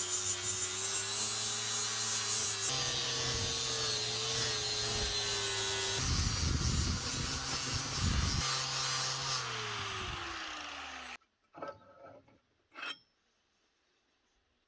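Hand-held electric power tool running with its abrasive working against the piece, its motor tone steady and wavering under load. Near the end the motor winds down with a falling pitch and stops, followed by two light knocks.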